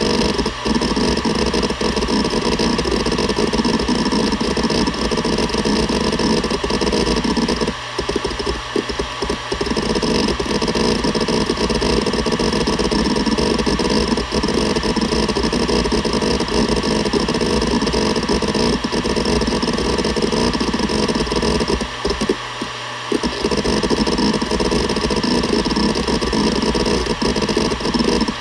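Seagate Barracuda ES.2 ST31000340NS 7200 rpm hard drive seeking continuously: a dense, rapid chatter of the head actuator over the steady hum of the spinning platters. The seeking pauses briefly twice, about 8 seconds in and about 22 seconds in.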